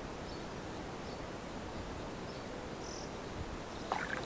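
Steady outdoor background hiss with a few faint, short high chirps. About four seconds in, a brief splash as a small hooked silver bream is pulled along the water surface.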